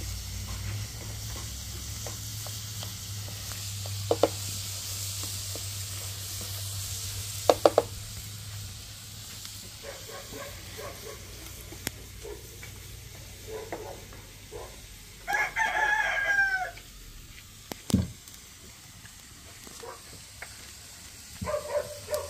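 Eggs with tomato and onion sizzling and being stirred in a frying pan, with a few sharp knocks against the pan; the sizzle dies down about halfway. A rooster crows once about two-thirds of the way through, followed shortly by a single thump.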